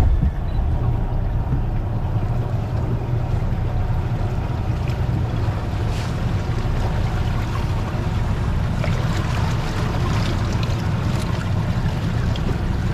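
Boat engine running steadily, a continuous low rumble, with wind and sea noise over it.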